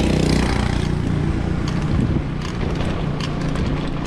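Road traffic with a motor vehicle engine running close by, steady and loud, with wind noise on the microphone.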